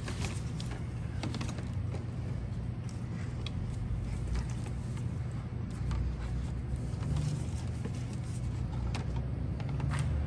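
Colamark A117H drum wrap labeler running: a steady low machine hum from the conveyor and drive, with scattered clicks and knocks of plastic quart bottles being handled on the conveyor.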